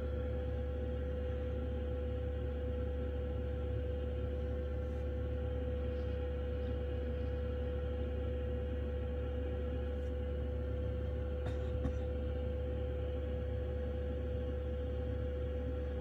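Diesel night heater fitted under a camper van running steadily, heard inside the cabin: a constant low rumble with a steady hum, and a few faint clicks.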